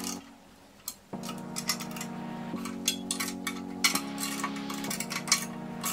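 Hand ratchet clicking in quick runs, with small metallic clinks, as the assembly bolts of a three-piece wheel are run down by hand. Soft background music of held chords plays under it and comes in about a second in.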